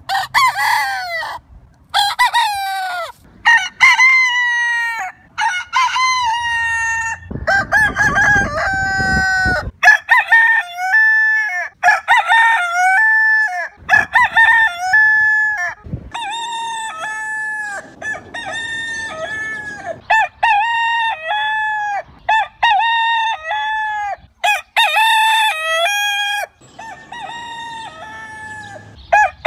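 Rooster crowing over and over, one crow following another with hardly a break. A low rushing noise sits under the crows for a couple of seconds about eight seconds in.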